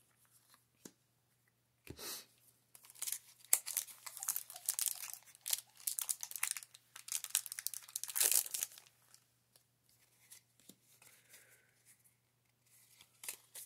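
Foil wrapper of a Pokémon trading-card booster pack crinkling and rustling as the cards are drawn out of it, in a run of crackles from about three to nine seconds in, after a soft knock near two seconds.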